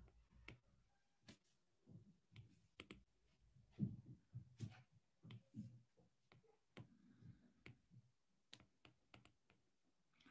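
Faint, scattered clicks and taps of a stylus on a tablet during handwriting, with a few duller knocks near the middle.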